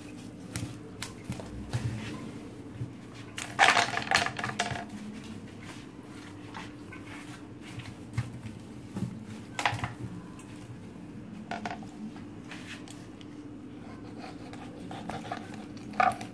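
Scattered knocks and clatter of hands, fish and a knife against a stainless-steel sink and plastic cutting board while fish are cleaned and cut. The loudest clatter, with a brief ringing, comes about four seconds in, with smaller knocks near ten, twelve and sixteen seconds. A low steady hum runs underneath.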